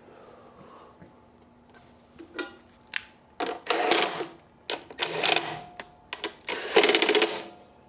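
Cordless drill/driver driving screws back into the planer's housing in three short runs of about a second each, with small clicks of the screws and tool between.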